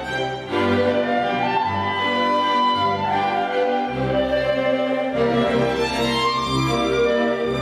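Clarinet and string ensemble (two violins, viola, cello and double bass) playing a Styrian dance (Ländler) in triple time, with a bass note about once a second beneath the melody.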